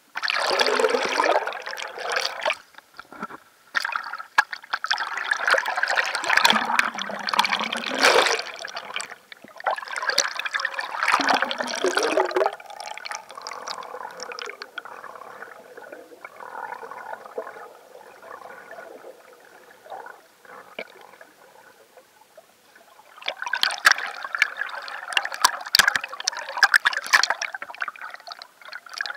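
Water sloshing and gurgling around a camera at the waterline of a red inflatable canoe as it dips under and comes back up. The sound comes in loud surges, goes quieter for a while in the middle and swells again near the end.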